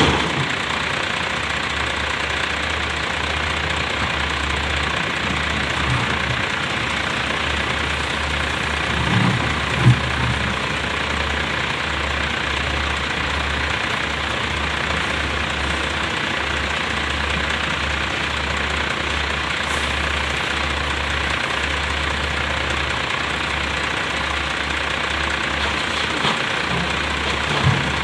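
Heavy diesel engine running steadily at idle, with one brief sharp knock about ten seconds in.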